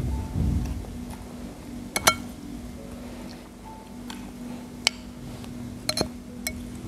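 A handful of sharp clinks, like a metal spoon tapping a china plate while eating: two close together about two seconds in and a few more near the end, over a steady low hum.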